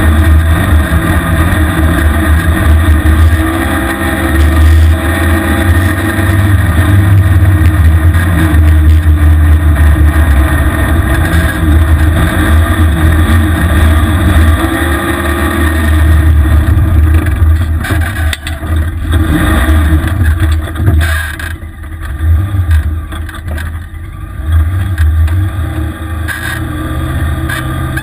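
The engine of a small off-road vehicle runs hard through deep snow, its revs rising and falling. About two-thirds of the way through it eases off, and the engine note drops and comes and goes.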